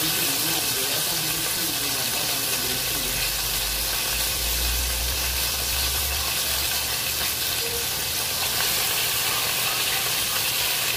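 Chicken pieces frying in hot oil in a large wok, a steady sizzle.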